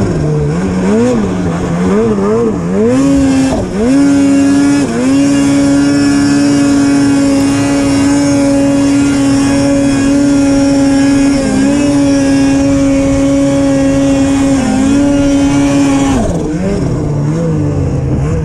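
Snowmobile engine revving up and down several times, then held at high revs for about ten seconds with two brief dips, before dropping back to lower, wavering revs near the end.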